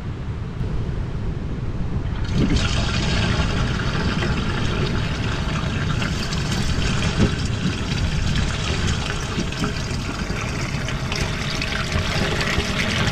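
Soapy kitchen-sink waste water running and gurgling through an open plastic waste pipe, turning much louder about two and a half seconds in as the flow arrives.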